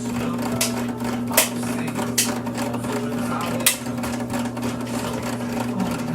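Small electric motor of a portable twin-tub washing machine running with a steady hum, with four sharp clicks or knocks about a second apart.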